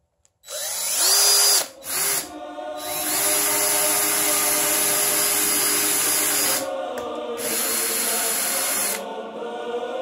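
DeWalt cordless drill boring pilot holes through a wall-mounted wooden board, its motor whining in several runs. It spins up about half a second in, gives a short burst around two seconds, runs steadily from about three to nearly seven seconds, and runs again until near the end.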